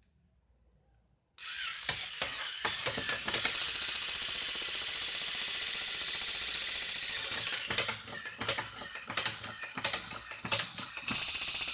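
Small electric motor and plastic gears in a battery-powered Captain America toy figure, whirring and clicking as it moves. It starts suddenly about a second and a half in, runs with a high whine, drops to softer clicking about two-thirds of the way through, and comes back loud near the end.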